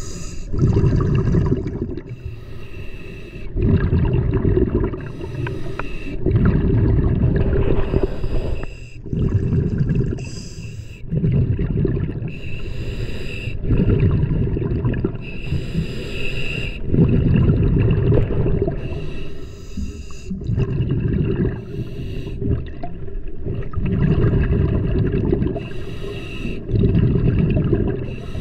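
Scuba diver breathing underwater through a regulator: a hiss on each inhale and a burst of bubbling on each exhale, repeating every few seconds.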